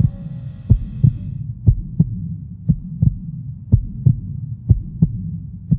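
Low paired thumps like a heartbeat, a double beat about once a second, over a steady low hum. A sustained musical chord cuts off right at the start.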